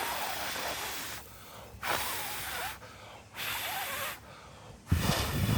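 Rigid foam board being broken and crumbled by hand, in four crunching, squeaky bursts of about a second each; the last, near the end, is the loudest and heaviest.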